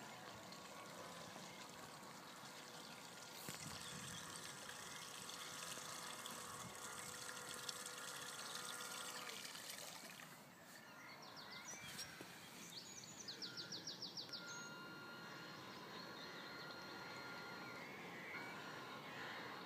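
Faint outdoor river ambience with water rippling, a thin steady whine in the first half, and a quick run of high chirps about thirteen to fourteen seconds in.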